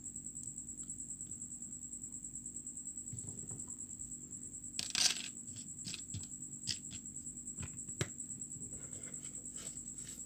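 Small steel split rings clicking as they are dropped and set down on a wooden tabletop: scattered light clicks, a louder rattle about five seconds in and a sharp click about eight seconds in.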